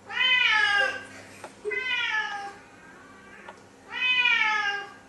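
Siamese cat meowing insistently for food: three long, loud meows about two seconds apart, each rising then falling in pitch.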